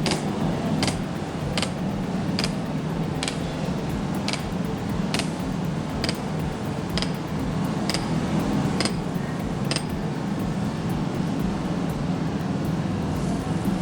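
Metal being struck with a hammer, about one sharp ringing blow a second, over a steady low rushing noise; the blows pause for a few seconds near the end, then resume.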